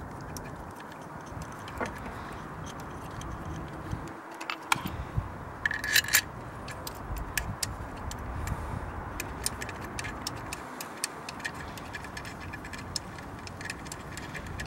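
Small irregular clicks and light rattles as the HT lead boots are handled and pushed onto a new ignition coil pack, over a steady low background rumble. The clicks thicken from about four seconds in, with a brief louder cluster around six seconds.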